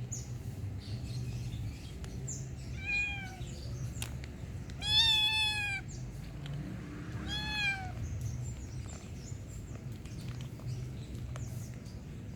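Kitten meowing three times in high, arching calls; the middle meow is the longest and loudest.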